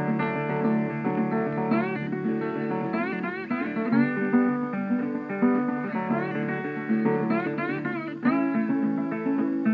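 Background music: acoustic guitar playing, with plucked notes and string bends.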